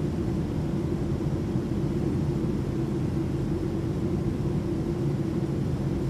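Steady low drone of an airplane in flight, heard from inside the cabin, with a humming band in the lower middle.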